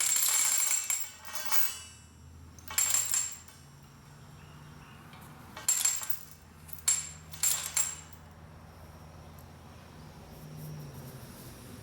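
Several short bursts of metallic clinking and rattling from steel parts of an old Yale chain hoist being handled during its brake repair.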